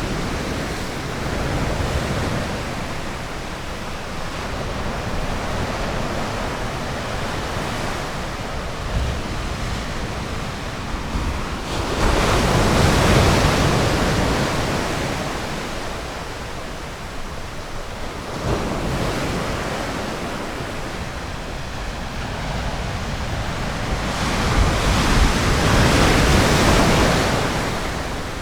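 Ocean surf washing on a beach: a steady rushing hiss that swells twice as larger waves break, once about halfway through and again near the end.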